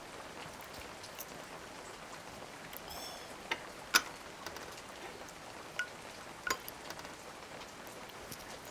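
Steady patter of rain from an added rain-sound ASMR track. Over it come a few sharp clicks and a short ringing clink about three to four seconds in.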